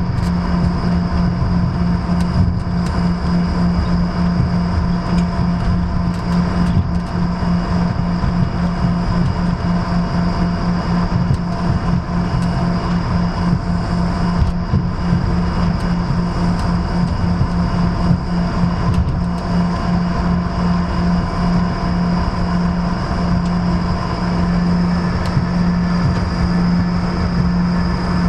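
Jet airliner cabin noise while taxiing: a steady engine hum with a constant low drone and fainter steady higher whines, heard from inside the cabin.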